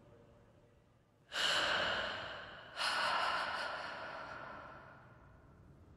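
A woman breathing heavily: two long, noisy breaths, the first starting about a second in and the second a second and a half later, each starting suddenly and fading away.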